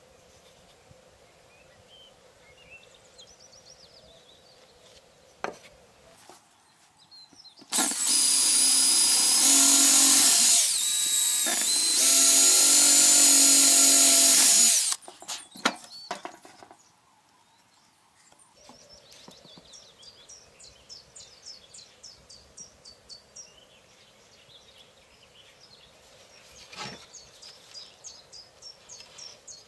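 Makita 18V cordless drill boring holes through a wooden board, running at steady full speed in two long runs of a few seconds each with a short break between.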